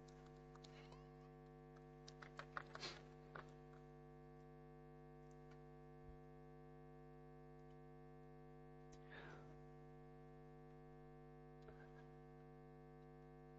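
Near silence: a steady faint electrical hum, with a few faint brief sounds now and then.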